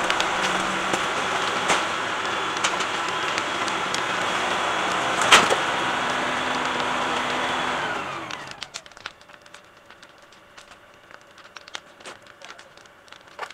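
LS compact tractor's diesel engine running steadily at high revs, then winding down about eight seconds in and going much quieter. A single sharp bang, the loudest thing, a little past halfway.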